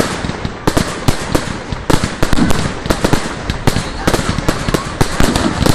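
Aerial fireworks bursting: a rapid, irregular string of sharp bangs and crackles, several a second.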